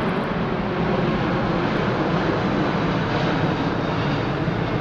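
Jet noise from the Airbus A380's four engines in flight: a loud, steady roar that swells a little midway.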